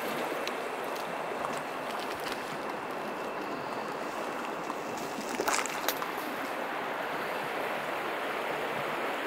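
Steady rush of flowing river water, with a few faint knocks about five and a half seconds in.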